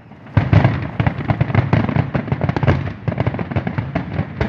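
Fireworks going off in a dense, rapid barrage of booming bangs and crackles, starting about half a second in.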